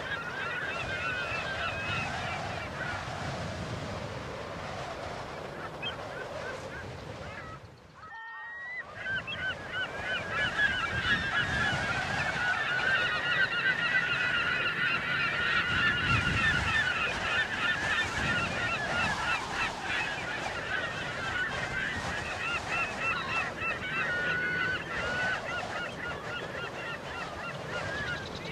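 A large flock of flamingos calling, many short overlapping calls forming a continuous chorus. It drops out briefly about eight seconds in and comes back louder and denser.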